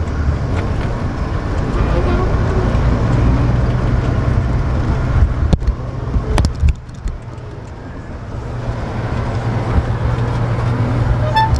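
Semi truck running down the road, heard from inside the cab: a steady low engine and road rumble. There is a sharp click about five and a half seconds in. The rumble drops off about two-thirds of the way through, then builds again.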